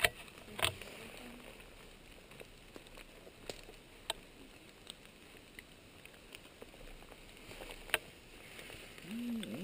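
Quiet footsteps through forest undergrowth, with a few sharp snaps scattered through.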